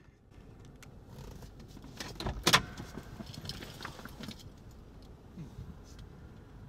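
Small clicks and rattles, with one sharp knock about two and a half seconds in, over a faint low rumble.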